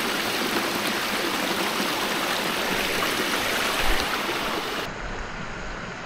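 Small mountain stream running over rocks, a steady rush of water. About five seconds in the sound cuts to a quieter, duller hiss.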